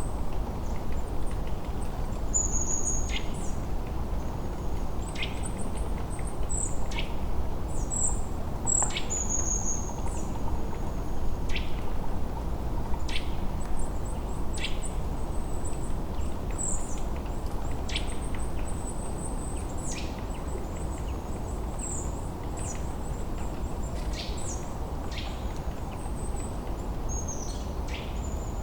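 High-pitched bird calls, short chirps and quick falling whistles about once a second, over the steady rush of river water.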